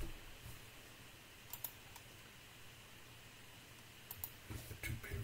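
Sparse computer keyboard and mouse clicks: a few separate clicks, with a small cluster near the end.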